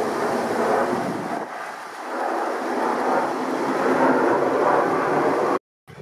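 Embraer 170 regional jet passing low overhead on approach with its gear down. Its jet engines make a dense rumble that fades and swells, mixed with strong gusty wind on the microphone. The sound cuts off abruptly near the end.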